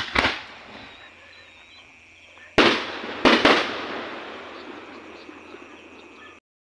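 Aerial fireworks bursting with sharp bangs: two right at the start, one about two and a half seconds in, and two in quick succession about a second later, each trailing off in a fading crackle. The sound cuts off suddenly near the end.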